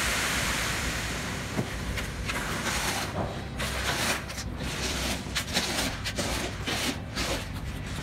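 Wet concrete sliding down a concrete truck's chute in a steady rush that fades over the first few seconds. After that come irregular scrapes and squelches of a rake and rubber boots working the fresh concrete, over a low steady rumble from the truck.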